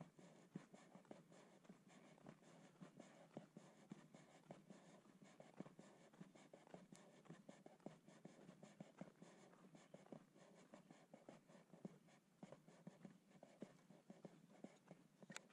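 Near silence with faint, muffled, irregular scratching and crunching from a person walking on a dry dirt track, and one sharper click near the end.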